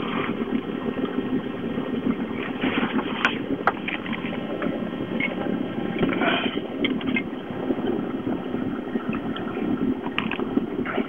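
Formula motorboat under way, its engine running at a steady hum, with short irregular splashes of water against the hull.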